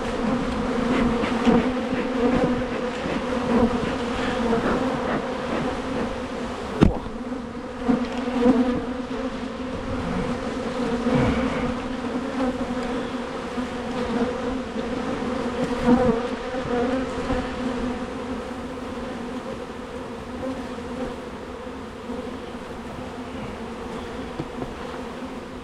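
Steady hum of many honeybees flying around a strong colony opened for frame removal, with one sharp knock about seven seconds in.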